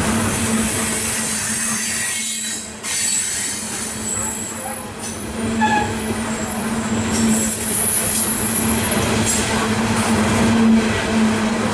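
Loaded coal cars of a freight train rolling past on steel rails, a steady loud rumble and rattle of wheels and car bodies, with thin high-pitched wheel squeals in the middle.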